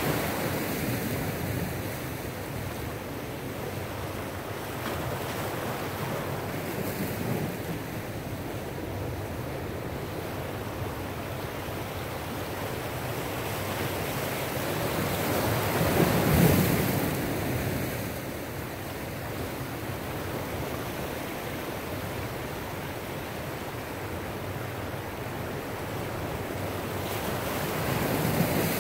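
Ocean surf washing in and breaking over shoreline rocks: a steady rush that swells into a louder surge about halfway through, with smaller swells at the start and near the end.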